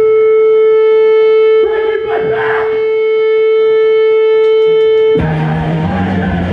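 Electric guitar feedback holding one steady high note through a live rock band's break, with a short noisy swell about two seconds in. A few light ticks follow, then the full band comes in loud with drums, bass and distorted guitars near the end.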